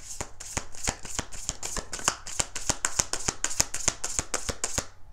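A deck of tarot cards being shuffled overhand in the hands: a quick run of card slaps and riffles, about five or six a second, that stops shortly before the end.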